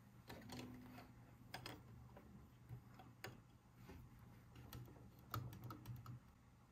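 Faint, irregular clicks and taps of small plastic toys or packaging being handled.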